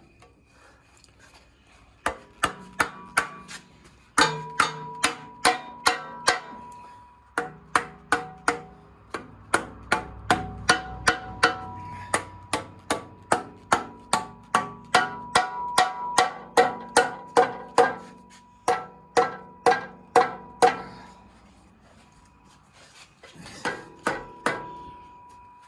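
Hammer blows, metal striking metal with a ringing note, about two to three a second in long runs with a short break partway, pounding a part into place.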